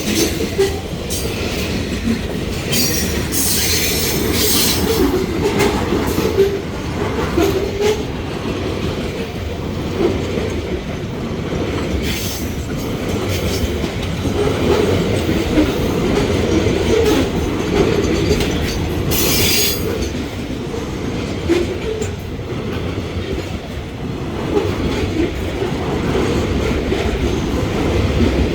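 Freight train of grain hopper wagons rolling past with a steady rumble and clatter of wheels on rail. Short high-pitched wheel screeches rise over it a few times, most strongly about three to five seconds in and again near twenty seconds.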